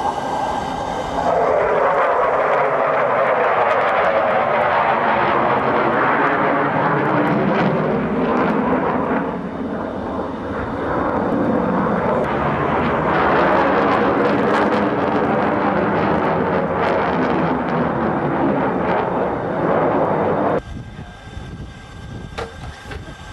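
F-14 Tomcat fighter jet making a low, high-speed pass. The loud jet noise sweeps in tone as the aircraft flies by and dips briefly about ten seconds in. It cuts off suddenly about three seconds before the end, leaving a much quieter background.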